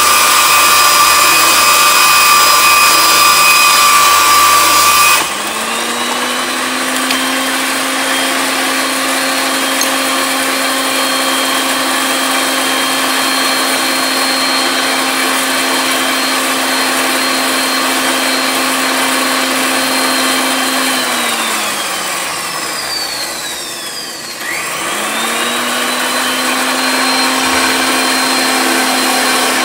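Electric motor of a RIDGID power pipe threading machine running with a steady whine. A louder, higher-pitched whine stops abruptly about five seconds in and the motor settles at a lower pitch; around 21 seconds in it winds down, then starts again and comes back up to speed about three seconds later.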